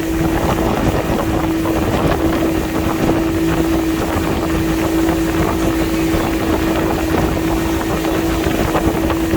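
Motorboat engine running at a steady speed, a constant hum with rushing wind noise on the microphone.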